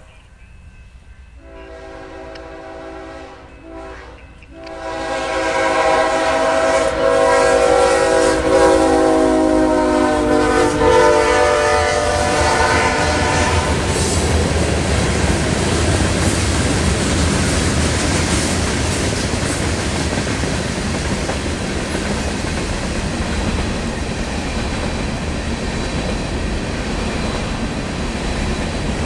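BNSF freight locomotive's air horn blowing for a grade crossing: two shorter blasts, then a long one that drops in pitch as the locomotive passes, over the rising rumble of the engine. Then a long string of hopper cars rolls past with a steady rumble and wheel clickety-clack.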